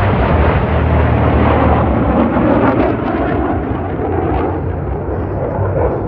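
Loud jet noise from the Black Eagles' formation of T-50B jet trainers passing overhead, each powered by a single turbofan, easing slightly about halfway through.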